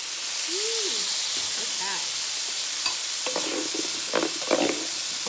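Diced, part-boiled potatoes hitting hot oil in an electric skillet, sizzling and frying steadily. In the second half a wooden spoon scrapes and knocks against the pan as the potatoes are stirred in.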